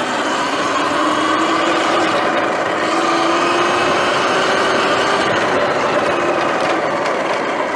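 Sur-Ron Light Bee X electric dirt bike riding on dirt: the electric motor's steady whine, creeping slightly up in pitch, over a rush of wind and tyre noise.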